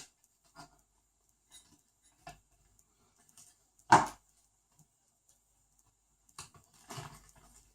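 Small plastic and metal RC-car parts being handled and set down on a work surface: scattered light clicks, one sharp knock about four seconds in, and a short run of clattering near the end.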